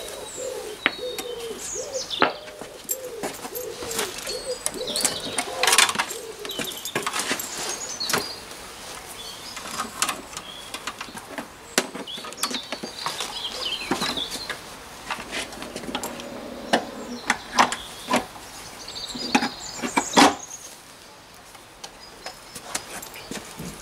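Irregular metal knocks and clunks as a belt sander and its guard are handled and set down on a steel-topped workbench, the sharpest around six seconds in and near twenty seconds. Birds chirp in the background, with a pigeon cooing in the first few seconds.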